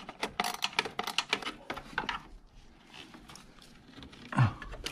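Quick irregular clicks and rattles of hard plastic and metal parts being handled as a car's cold air intake pipe is worked loose from its mount, thinning out after about two seconds, with a brief grunt-like voice near the end.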